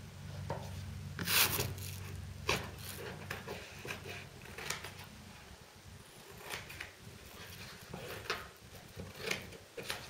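Scissors snipping lining paper and the paper rustling as it is cut and peeled back from the wall: a string of short crisp sounds about a second apart, the loudest about a second and a half in.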